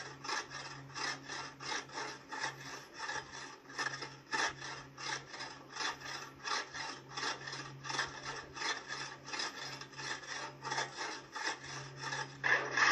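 A hand tool worked back and forth on wood in even rasping strokes, about three a second.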